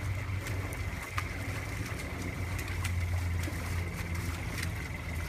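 An engine idling with a steady low hum, over a thin steady high whine and a few light clicks.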